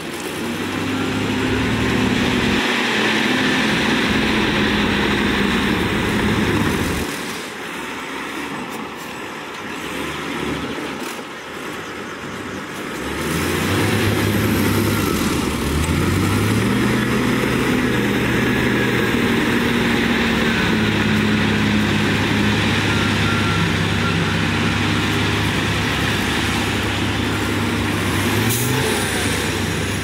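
Heavy diesel engines of a tipping dump truck and a crawler bulldozer running. The engine sound drops about seven seconds in, then revs up with a rising pitch around thirteen seconds and holds steady.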